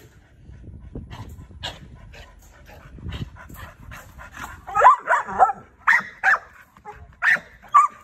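A young bulldog yipping and whining: a quick run of short, high calls starting about halfway through.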